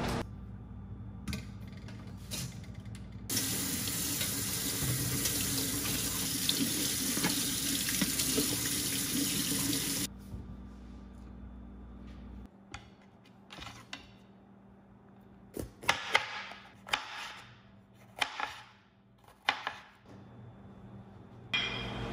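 Kitchen tap running into a stainless steel sink for about seven seconds, rinsing salad greens and a bell pepper in a metal colander, then shut off. A scattering of short, light knocks and clatters follows near the end.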